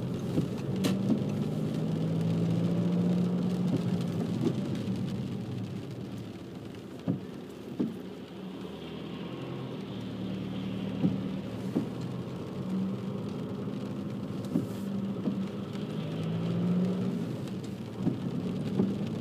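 Car driving on a wet road, heard from inside the cabin: a steady engine hum with tyre noise, and a few faint knocks.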